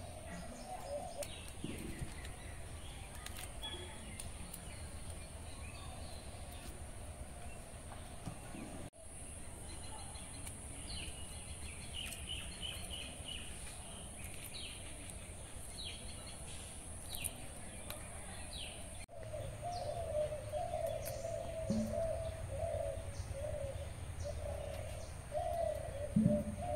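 Birds calling: low, wavering cooing notes that grow stronger in the last several seconds, and short high chirps in quick series in the middle.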